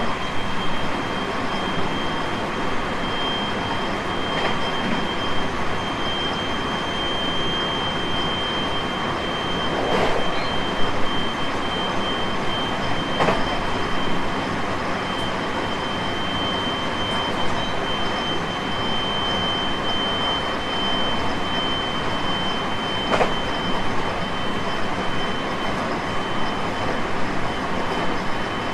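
Interior running noise of a JR West 223 series 5000-subseries electric train at speed: a steady rumble of wheels on rail with a steady high-pitched tone, and a few sharp clicks now and then.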